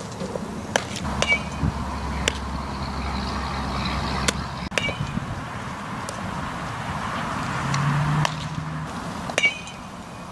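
Softball fielding practice: sharp smacks of a softball into leather gloves, and three times a bat hitting a ball with a short ringing ping. A low rumble from a passing vehicle runs under the first few seconds.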